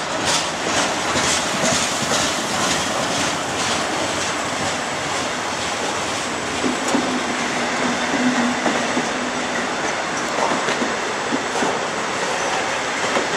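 Freight train of EWS bogie coal hopper wagons running past at speed, a continuous rolling rumble with the wheels clicking rhythmically over rail joints in the first few seconds. A steady low hum runs through it for about three seconds midway.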